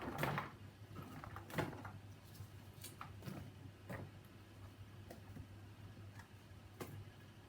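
Chopped onion, pepper and courgette being dropped by hand onto a roasting tray: scattered light taps and clicks at an irregular pace.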